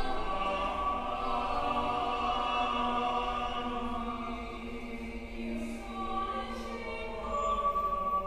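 Mixed church choir singing long held chords, the sound dipping a little midway and swelling again near the end.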